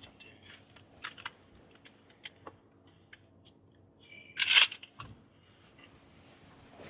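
Faint clicks and scratchy rustles of people shifting inside a hunting blind, with one louder scratchy rasp about four and a half seconds in.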